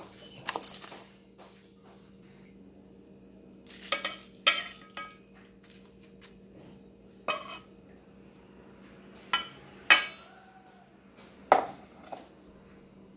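Irregular clinks and knocks of a small dish and utensils against a stainless steel mixing bowl, about eight in all, as seasonings are tipped in. A faint steady hum runs underneath.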